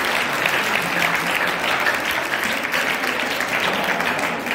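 Audience of students clapping: a steady round of applause that thins slightly near the end.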